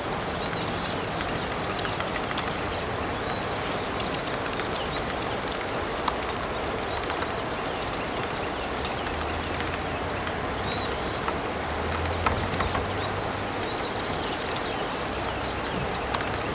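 Floodwater rushing in a steady, even wash, with small birds chirping over it and a low hum rising in the middle for a few seconds.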